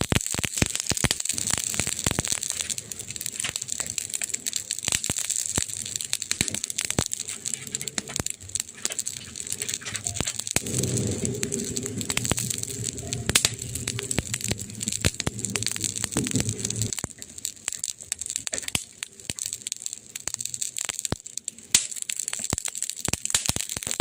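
Wood fire crackling and popping: dense, irregular sharp pops over a steady hiss. For a few seconds midway a low, faintly tonal murmur joins in.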